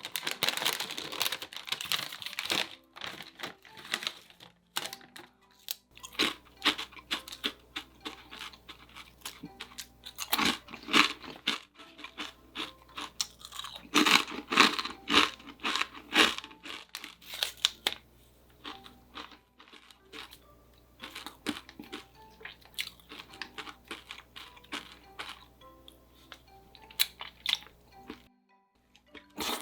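Close-up crunchy chewing and biting of food, in irregular runs of crackling bites with short pauses between them, over quiet background music.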